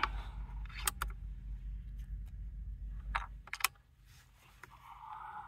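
Sharp mechanical clicks and clacks from a Benjamin Bulldog .457 air rifle being readied: the side lever cocked and a slug loaded through the single-shot tray. Two clicks come about a second in and a few more at about three to three and a half seconds. Low wind rumble sits underneath until about three and a half seconds, and a soft hiss comes near the end.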